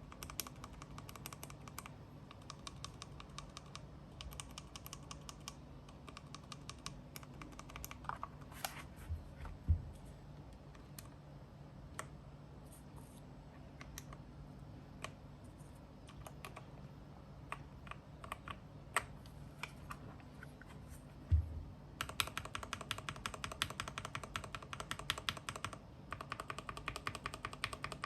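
Keystrokes on a mechanical keyboard fitted with lubed Gateron Yellow linear switches with swapped top and bottom housings. Scattered single presses give way to fast continuous typing near the end.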